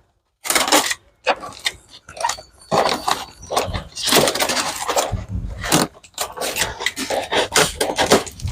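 A heavily taped cardboard box being pulled and torn open: irregular ripping, crinkling and scraping of cardboard and packing tape, with a few heavier thuds in the middle.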